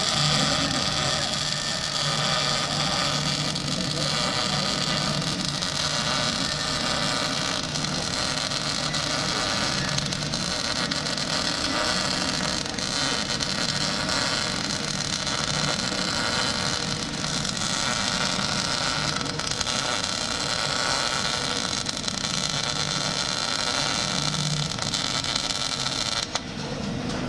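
Electric welding arc running steadily with a dense, even crackle, stopping suddenly about a second before the end.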